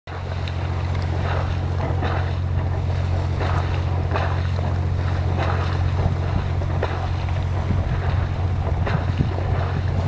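A steady low hum with faint wind on the microphone, over which a large flock of cormorants and white pelicans on the water makes scattered short calls and splashes.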